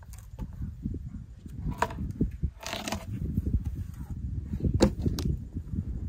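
Wind rumbling on the microphone, with a few knocks and a short scraping rush near the middle as a freshly milled wood slab is lifted off the log and set down.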